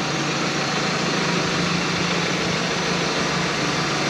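Tractor engine running steadily with an even, low drone, hitched to a grain cart.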